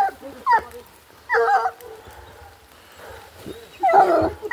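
Hunting dogs barking and yelping in short, spaced bursts, with the loudest cluster near the end.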